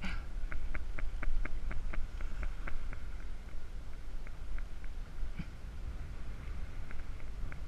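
Fishing reel clicking in an even run of about four clicks a second for a couple of seconds, then in scattered single clicks, as line is worked against a hooked bonito. Wind buzzes low on the microphone underneath.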